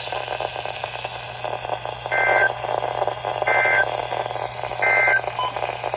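Three short warbling bursts of Emergency Alert System data tones, about 1.3 seconds apart, over the steady hiss and hum of a weather radio receiver: the End of Message signal that closes a required weekly test.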